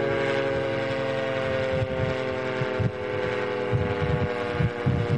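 A warning siren sounding one long, horn-like tone that slowly falls in pitch, with low gusty rumbling of wind on the microphone underneath.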